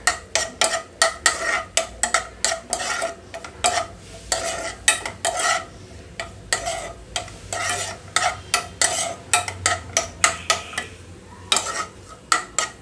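Metal spoon scraping and clinking against a nonstick frying pan, stirring cashew pieces and raisins as they fry in ghee, with a light sizzle underneath. The strokes come quickly and unevenly, several a second, with a short pause near the end.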